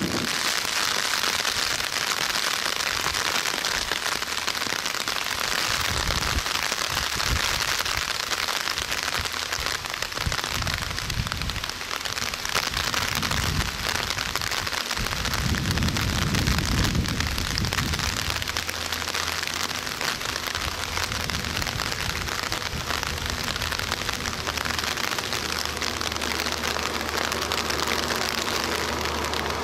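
Steady rain falling, an even hiss throughout. Low rumbling gusts come and go in the middle, and a faint low drone sets in during the last third.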